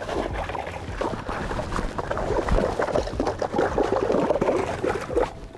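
A salmon thrashing in a shallow pool of water among seaweed at the tide line, making continuous irregular splashing that stops shortly before the end.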